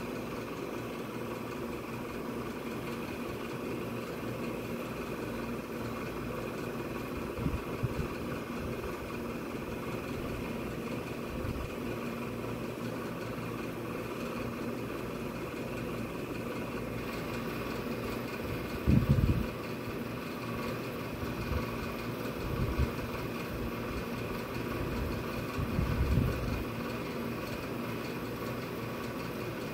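A steady machine hum, with a few short, low rumbles breaking in, the loudest about two-thirds of the way through and again near the end.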